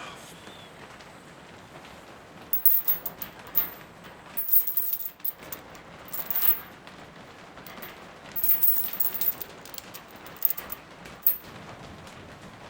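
Steady rain, with several short bursts of crisp crackling clicks over it.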